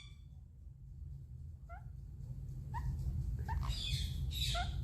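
Pet parrots making short rising chirps about a second apart, turning into louder, harsher squawk-like calls near the end.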